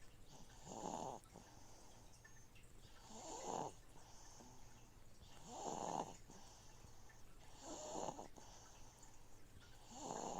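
A sleeping baby snoring faintly and evenly, five snores about two seconds apart, over the steady low hum of a fish tank filter.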